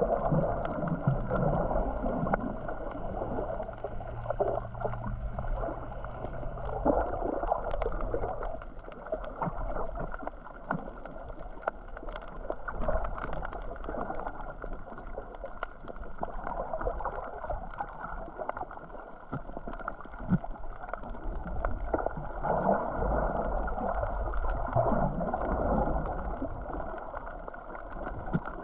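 Seawater sloshing and gurgling, heard muffled around a GoPro camera in the water, with scattered small clicks and a steady low hum through the first seven seconds or so.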